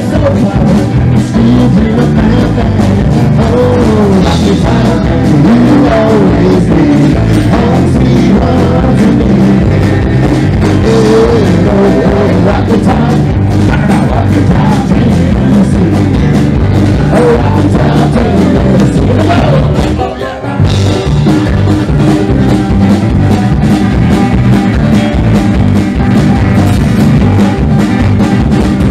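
Southern roots rock song with a singer, electric guitar and drum kit playing at a steady beat. The music drops briefly about twenty seconds in before carrying on.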